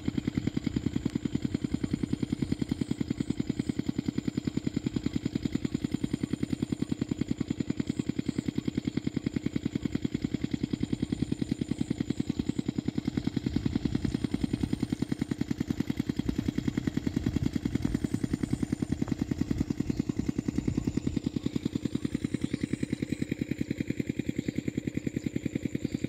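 Irrigation pumping set's diesel engine running steadily, with a fast, even beat of firing strokes that never breaks.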